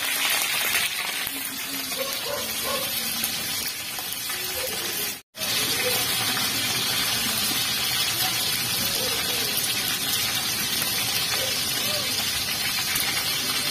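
Pieces of lapu-lapu (grouper) frying in hot oil in a wok, a steady sizzling hiss, half-cooked before going into a soup. The sound breaks off for a moment about five seconds in. Faint voices can be heard underneath.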